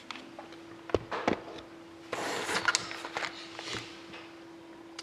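Handling noises: two light knocks about a second in, then a rustling scrape lasting about a second, over a steady low hum.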